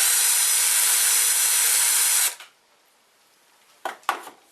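Cordless drill with a 1 mm bit running for about two and a half seconds, opening up a hole in a circuit board for a connector terminal, then stopping abruptly. Two light clicks near the end.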